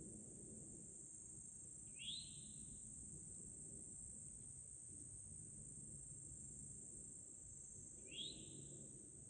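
Faint, steady high-pitched insect chorus, with two short rising chirps about six seconds apart.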